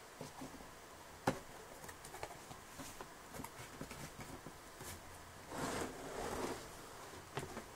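Cardboard toy box being opened and handled: faint rustling and clicks, a sharp click about a second in, and a louder scraping about five and a half seconds in as a large plastic part slides against the cardboard.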